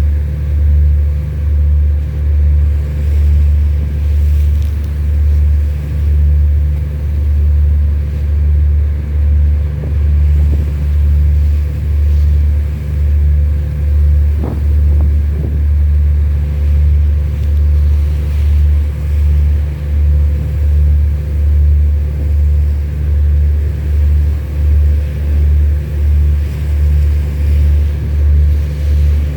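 Large boat's diesel engine running steadily: a deep rumble that throbs evenly about once a second, with a steady hum above it.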